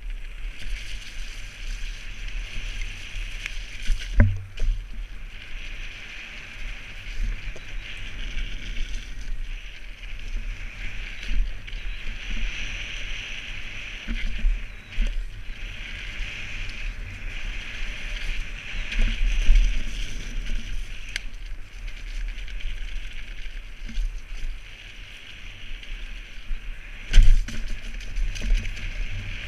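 Mountain bike tyres rolling fast over a wet, muddy dirt trail, with wind rumble on a helmet-mounted camera and the bike rattling. Two hard thumps from the bike hitting bumps stand out, one about four seconds in and a louder one near the end.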